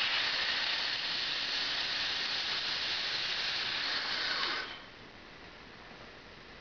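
Compressed air hissing steadily out of a freshly drilled hot-tap hole in a pressurized compressed-air line as the drill bit is backed out through the valve; the hiss cuts off abruptly about four and a half seconds in as the valve is closed.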